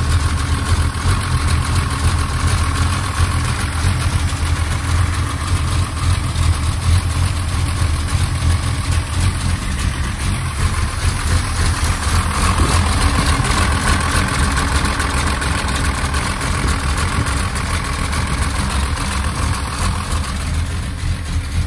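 A 1963 Mercedes-Benz 220SEb's fuel-injected straight-six idling steadily, running rich and overfuelling.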